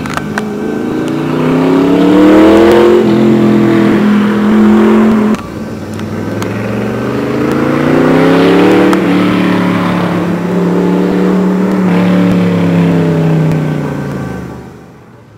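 Cobra 427 S/C's V8 exhaust under hard acceleration: the engine note climbs, drops sharply at a gear change about five seconds in, climbs again and holds, then fades away near the end.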